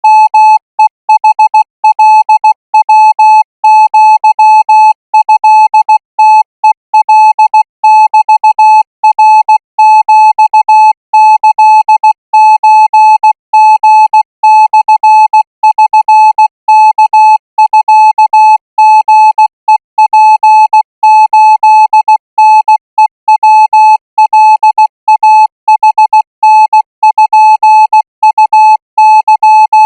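Morse code practice tone: a single steady beep keyed on and off in short and long pulses at 20 words per minute, sending Thai-language Morse code for receiving practice.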